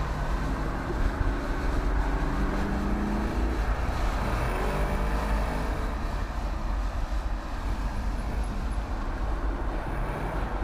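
Porsche Cayenne GTS's V8 engine pulling, its note rising over the first three or four seconds, then running on under a steady rush of wind and road noise as the car drives.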